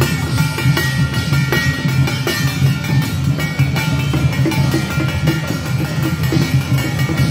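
Temple procession band music: drums beating a steady, dense rhythm with other percussion and held tones above.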